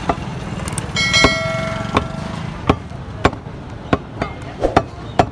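Irregular knocks of a butcher's knife striking a wooden chopping block, about nine in five seconds, over low street noise. About a second in, a ringing tone sounds and fades over a second or so.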